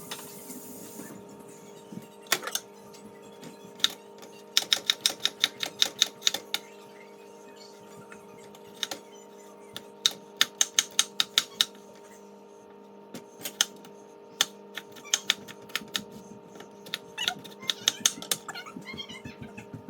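Rapid, evenly spaced knife chops on a cutting board, about six a second, in several short runs with pauses between. A steady hum sounds underneath.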